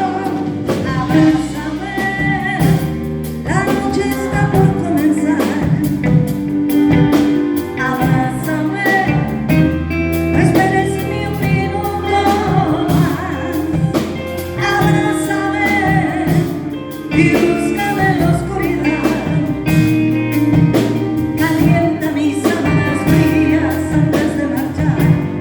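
Live band playing a pop ballad with singing over it, carried on a steady drum beat.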